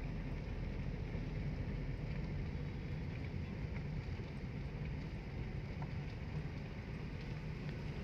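Steady low outdoor background noise: a dull rumble with a faint low hum and no distinct events.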